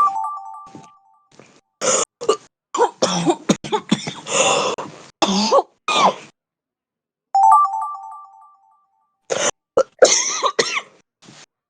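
A heavy smoker's cough: two fits of harsh coughing, one in the middle and another near the end, with rasping breaths between the coughs. A short ringing chime-like tone sounds twice, at the start and about seven seconds in, fading away each time.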